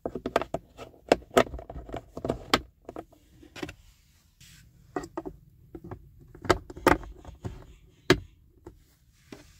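Kia Sportage glove box stoppers being twisted back into their holes in the glove box side walls: a run of short, sharp clicks and knocks, quick at first and then spaced out, with the sharpest click about eight seconds in.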